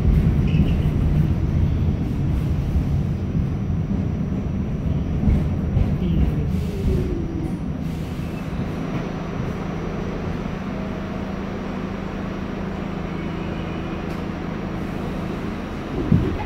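Ride inside an R46 subway car running along the track: a steady low rumble of wheels and motors that eases off a little over the first half, with a few short sliding tones near the middle and at the end.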